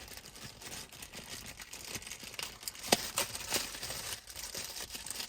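Plastic packaging crinkling and rustling with small clicks as small parts are taken out by hand, with one sharper click about three seconds in.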